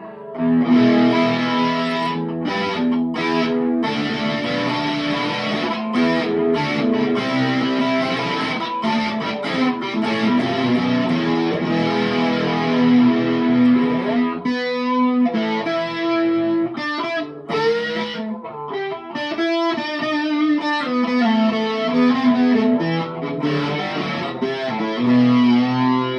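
Electric guitar played through a distortion pedal into a TC Electronic 3rd Dimension chorus pedal: distorted chords ringing out, with a short break about halfway through.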